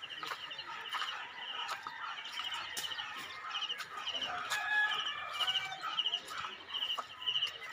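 Backyard chickens clucking and calling, with a short high chirp repeating about twice a second.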